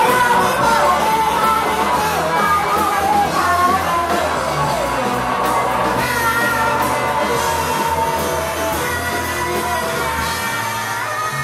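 Live rock band playing: electric guitar, drums and keyboard together, with a lead line that wavers in pitch over the first few seconds before settling into held notes.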